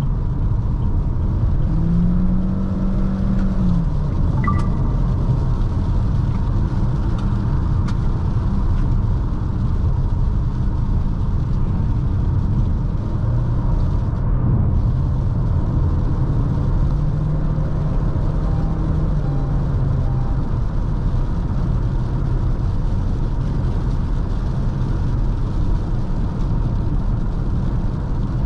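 Cabin noise inside a 2021 Chery Tiggo 4 Pro on the move: steady road and tyre noise with engine and wind noise. A low hum swells briefly about two seconds in and again around seventeen seconds, and there is a short click near four and a half seconds.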